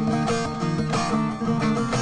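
Long-necked saz-family lute strummed fast with the fingers, a steady run of rapid strokes over ringing drone strings.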